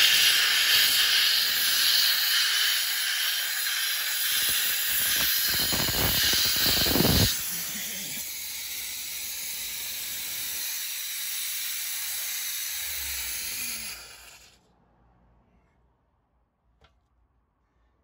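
Compressed air hissing out of the open drain valve at the bottom of an Airmaster compressor's tank, blowing the condensation water out. A rougher, spluttering rush runs through it about five to seven seconds in. It then drops to a quieter hiss and cuts off about fourteen seconds in.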